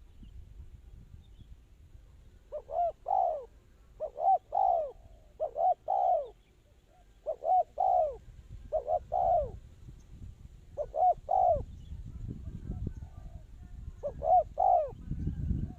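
Spotted dove cooing: a repeated phrase of two or three quick, rounded coos, given about seven times at intervals of a second or two. A low rumble sits underneath in the second half.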